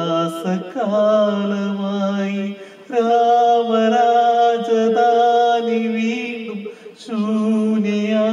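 A man singing solo without accompaniment, holding long notes in three phrases with short breaks between them, about three and seven seconds in.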